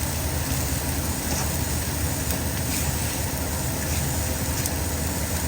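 Steady low hum with an even hiss over it while rice and vegetables fry in a wok, with a few faint scrapes now and then.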